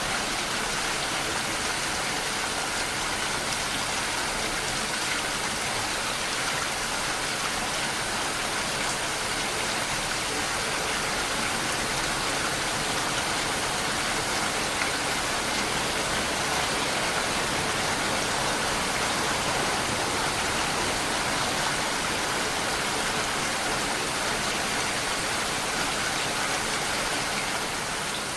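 Steady rain falling, an even dense hiss with no distinct drops standing out.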